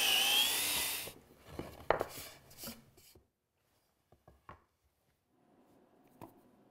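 Cordless DeWalt drill with a stepped pocket-hole bit boring into plywood in a pocket-hole jig. Its whine dips in pitch under load and stops about a second in, followed by a few knocks and clatter of wooden pieces.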